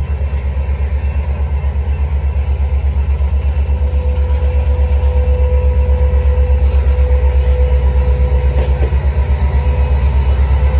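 Canadian Pacific diesel locomotive idling: a loud, low, rapid, even throb that slowly grows louder, with a steady whine joining about four seconds in.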